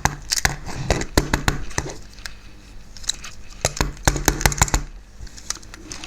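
Small hand tools clicking and scraping against the motor of an OO-gauge model locomotive: sharp, irregular ticks and clicks while a stubborn carbon motor brush is worked loose.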